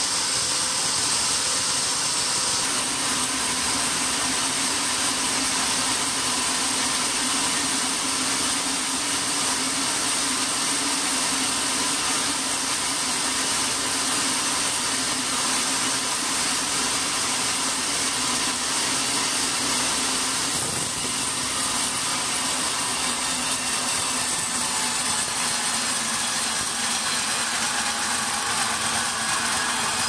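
Large vertical band sawmill running, its blade sawing lengthwise through a big log: a steady machine noise with a high hiss over a low hum, shifting slightly about two and a half seconds in and again around twenty-one seconds.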